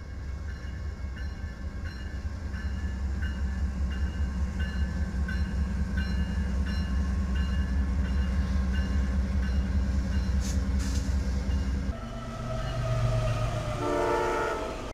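Several Amtrak GE Genesis diesel locomotives passing slowly with a deep, steady engine rumble, and a grade-crossing bell ringing about twice a second. About twelve seconds in it gives way to a CSX freight diesel passing and sounding its horn, a chord of several notes near the end.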